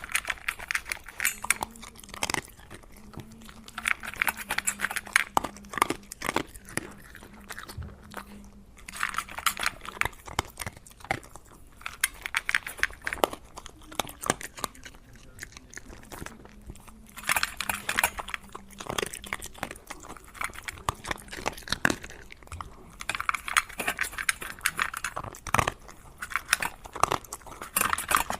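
Dog eating dry kibble from its bowl: crisp crunching and chewing in dense bursts of sharp clicks, with sparser stretches between mouthfuls.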